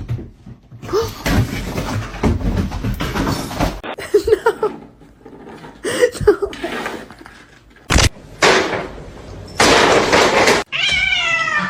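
Cats meowing across several short clips: a few short calls about four to six seconds in, and one long meow that falls in pitch near the end. Between them are stretches of loud hissing noise.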